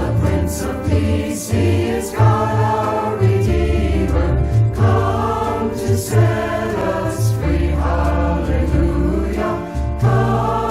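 A choir singing a sacred choral piece with instrumental accompaniment, long deep bass notes held underneath the voices.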